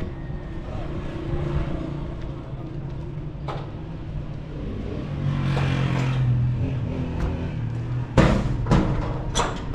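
Steady low motor rumble with street noise that swells about halfway. A knock a few seconds in, then three sharp knocks near the end, the first the loudest, as a plastic crate is set down on a counter.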